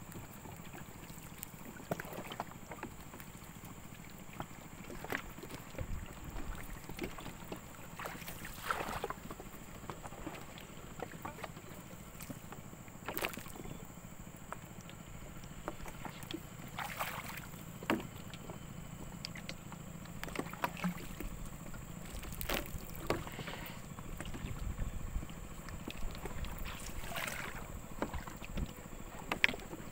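Steady water noise with scattered short clicks and taps every second or two, and a faint constant high whine throughout.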